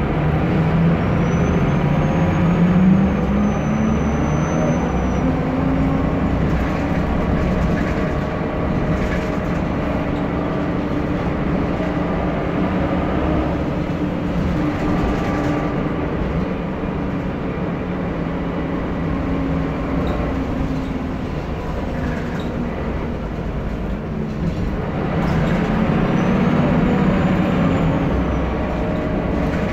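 Mercedes-Benz O405G articulated bus's six-cylinder diesel engine running under way, its note rising as it accelerates in the first few seconds and again near the end, with a faint high whine over each acceleration.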